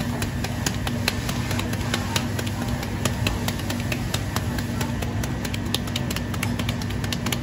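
Gloved hands kneading ground meat for hamburg steak in a stainless steel bowl: quick, irregular wet slaps and squishes, several a second. Under them runs a steady low machine hum.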